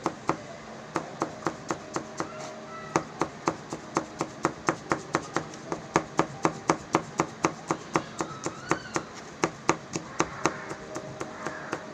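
Kitchen knife chopping green bell pepper finely on a plastic cutting board: a quick, even run of knife taps, about four a second, with a few short pauses.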